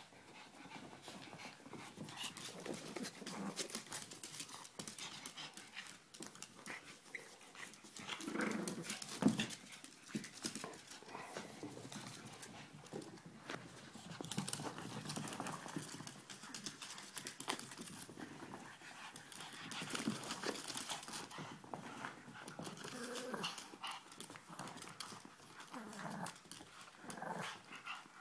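Two Boston Terriers at rough play over a plush toy: panting, low play-growls and scuffling, with scattered clicks, loudest about nine seconds in.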